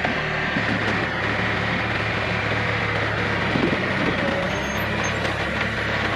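John Deere 110 backhoe's engine running steadily under work, with a few light knocks.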